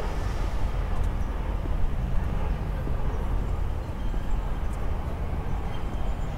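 Outdoor background noise: a steady low rumble under a constant hiss, with a few faint ticks.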